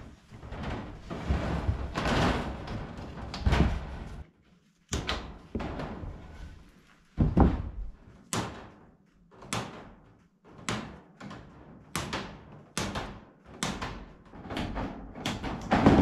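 Wire mesh being fastened to a wooden frame: a few seconds of rustling and scraping, then about a dozen sharp hammer strikes on the frame, one every half second to a second.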